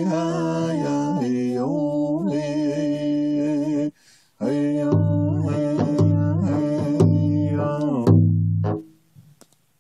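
Background music: a voice singing long held notes, joined by low beats about once a second from about five seconds in. The music drops out briefly near four seconds and stops about nine seconds in.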